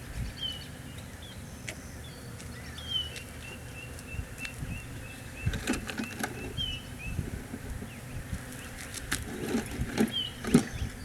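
Wild birds calling: short slurred chirps, and a run of quick repeated notes about three a second through the middle. Several sharp clicks or knocks come in two clusters, the loudest near the end, over a low rumble.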